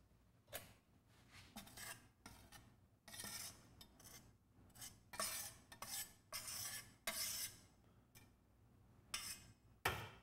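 Metal spoon scraping fine dry soil out of a stainless steel sieve pan into a porcelain dish, in short, irregular scrapes, with one sharper tap near the end.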